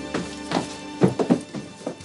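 Background film music with a string of short, sharp knocks and thuds, about eight in two seconds; the sustained music tones drop away about halfway through.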